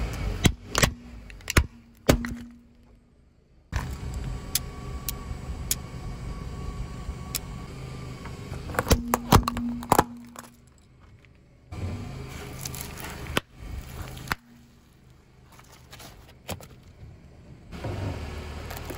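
A car tyre rolling slowly onto and crushing objects on asphalt, with the car's engine running at low speed. Sharp cracks of hard plastic breaking come in the first couple of seconds, from a small black plastic electrical device, and more cracks and crunches come around nine to ten seconds in. Abrupt cuts drop the sound to quiet stretches.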